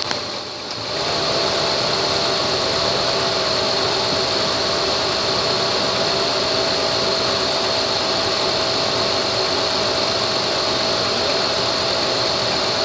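2005 Honda Pilot's 3.5-litre VTEC V6 running steadily at idle, a constant engine hum with a thin steady whine over it.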